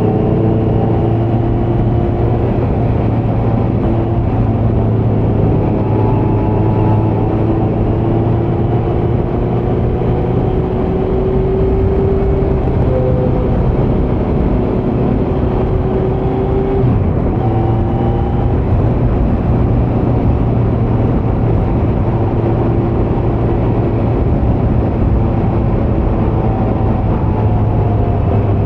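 Kawasaki Z900's inline-four engine running through a Leo Vince muffler on stock headers with the dB killer removed, holding fairly steady revs with only small changes in pitch.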